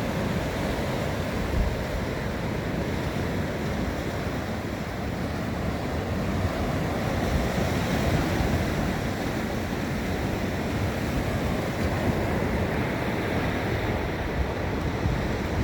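Gulf of Mexico surf washing onto the beach: a steady wash of breaking waves that rises and falls gently.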